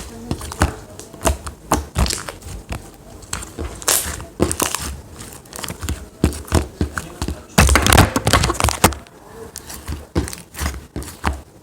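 Handling noise on a phone's microphone: irregular rustling, clicks and knocks as the phone is fumbled and falls, with a dense loud stretch of rubbing and bumping about eight seconds in.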